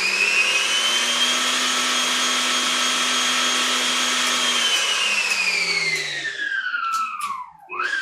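Nurxiovo stand mixer motor running with no load, its whine holding at a steady high pitch and then falling as the speed is turned down. Near the end it cuts out, starts again briefly and winds down.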